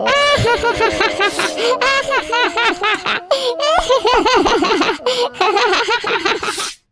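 A cartoon character's high-pitched laughter: a long, rapid run of giggling syllables that cuts off suddenly near the end.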